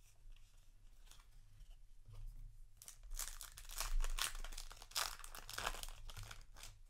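Foil wrapper of a Yu-Gi-Oh! Legacy of Destruction booster pack being torn open and crinkled. A few faint crinkles come first, then a dense run of tearing and crackling from about three seconds in that stops just before the end.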